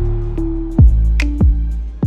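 Background music: a held bass and melody note under a beat of deep kick-drum thumps and light ticking percussion.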